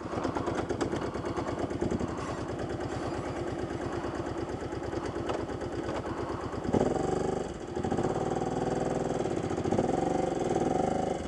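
4x4 ATV engine running at low, steady revs with an even throb. About seven seconds in it revs a little, and its pitch dips and rises a few times.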